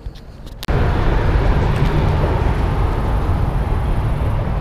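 Low outdoor ambience, then about a second in a loud, steady rumbling noise starts abruptly and holds, like wind buffeting the microphone or distant road traffic.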